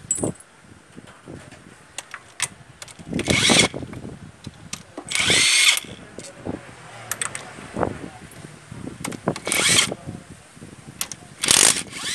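Cordless power driver with a socket spinning in four short bursts, each about half a second to a second long, as it backs out the valve cover bolts on a Toyota 2C diesel engine. Light clicks of the tool and parts sound between the bursts.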